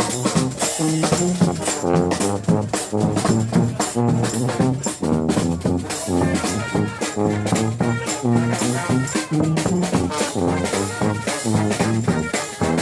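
Street brass band playing live, with trombones and trumpets over drums and cymbals keeping a steady, upbeat beat.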